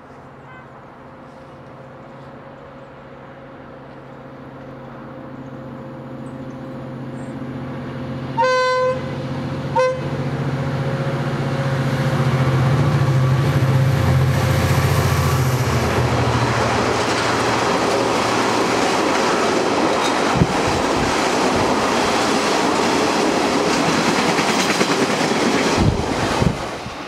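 Irish Rail 071 class diesel locomotive (EMD JT22HCW with a V12 two-stroke engine) drawing near and passing, sounding its horn twice about eight seconds in, a longer blast then a short one. Its engine drone builds and is loudest as it goes by halfway through, then gives way to the steady clatter and rattle of empty timber wagons rolling past.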